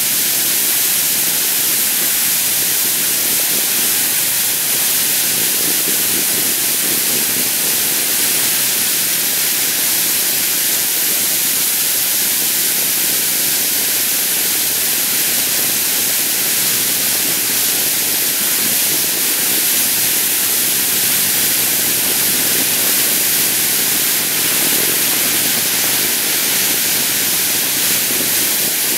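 Steady, loud hiss of a dog sled's runners sliding over snow while the Akita team pulls it.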